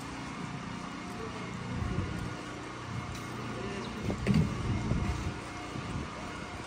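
Outdoor town-square ambience: a steady low rumble of background noise, with a few brief knocks and a louder thump about four seconds in.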